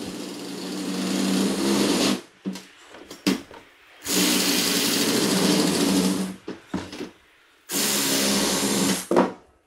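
Milwaukee cordless drill driver spinning a Malco TurboShear attachment, its blades cutting along a corrugated metal siding panel. The cut comes in three runs of a second or two each, with short pauses and a few clicks between them.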